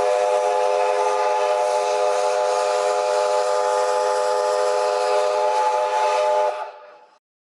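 Steam locomotive whistle blowing one long, steady, chord-like blast with a steam hiss around it. It fades and stops about seven seconds in.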